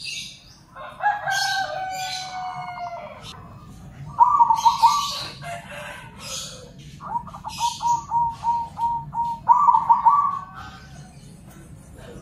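Zebra doves (perkutut), local and crossbred birds, answering one another in several rolling, stuttering coo phrases, one of them a fast run of repeated notes. High chirps are mixed in.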